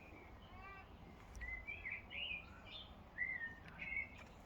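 Songbird chirping: a run of short, quick, curving high notes starting about a second in, over faint background hiss.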